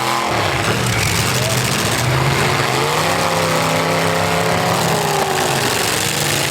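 V8 engines of full-size demolition derby cars revving, their pitch rising and falling as the throttles open and close.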